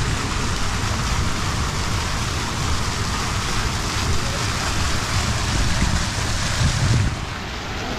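Steady splashing rush of a fountain's falling water, with an uneven low rumble beneath it.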